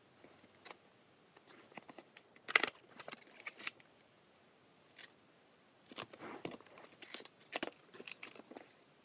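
Small cardboard box of firecrackers being handled and opened: short scrapes, taps and rustles of the lid and inner tray, the loudest a sharp snap about two and a half seconds in, then a run of scraping near the end as fingers go among the firecracker tubes.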